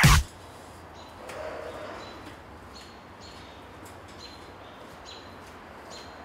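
A small bird chirps repeatedly: short, high, same-pitched chirps come several times a second over a faint, steady background.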